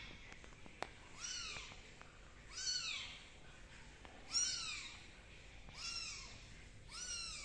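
Young kittens mewing: five short, high calls, each rising then falling in pitch, about one every second and a half. A single sharp click a little under a second in.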